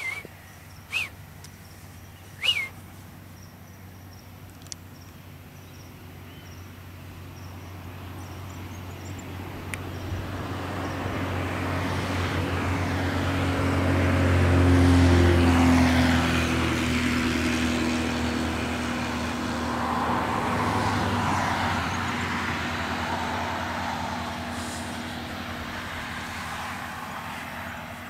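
A road vehicle passes by, its engine and tyre noise swelling over several seconds, loudest about halfway through, then slowly fading away. A couple of short, sharp sounds come in the first few seconds.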